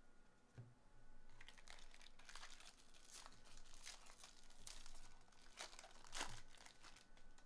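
Foil wrapper of a baseball card pack crinkling and tearing as it is ripped open by hand, in a string of short crackles.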